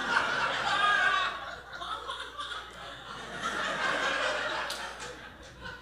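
Audience laughing, loudest at first and dying away over a few seconds.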